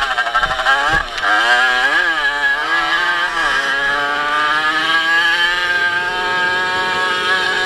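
A small racing motorcycle's engine heard from the rider's helmet: the revs dip and climb sharply several times over the bumps and throttle changes, then hold high and slowly rise along the straight. Two low thuds about half a second and a second in, as the bike hits bumps.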